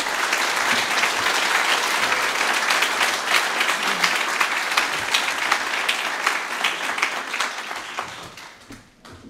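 An audience applauding steadily at the end of a talk, the clapping fading away near the end.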